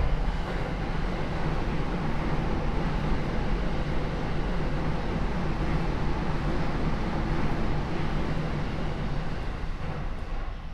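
Steady interior noise inside a Rinkai Line 70-000 series electric train car: an even rushing hum with no rising or falling motor whine.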